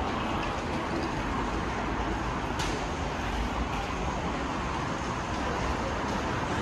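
Steady background noise on an indoor subway station platform, an even wash of hum and hiss, with one sharp click about two and a half seconds in.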